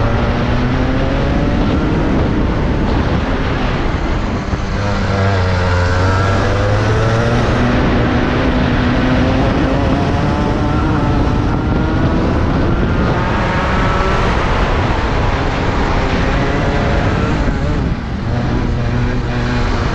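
Rotax 125 single-cylinder two-stroke kart engine at racing speed, recorded onboard. The revs climb and fall with the track, dipping sharply about four seconds in and again near the end as the throttle comes off for corners.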